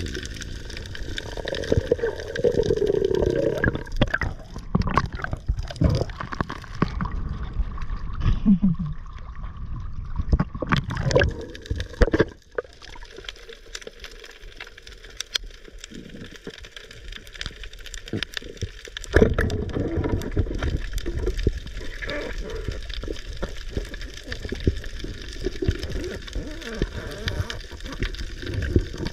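Water gurgling and churning around an underwater camera, with scattered knocks and clicks. It is quieter in the middle and louder again from about two-thirds of the way in.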